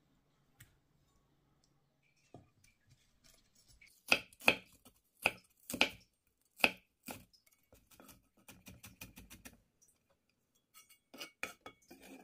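Chef's knife chopping celery on a wooden cutting board: a handful of sharp knocks from about four seconds in, then a quicker, softer run of cuts as the celery is minced, and a few more knocks near the end.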